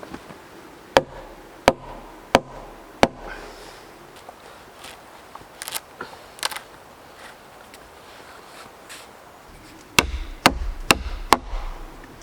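Hatchet chopping wood: four sharp blows about two-thirds of a second apart, a few faint knocks, then four quicker blows near the end.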